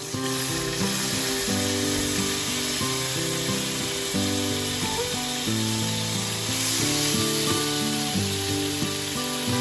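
Marinated chicken breast sizzling in hot foaming fat in a nonstick wok. The sizzle starts suddenly as the meat goes in and then holds steady, over background music.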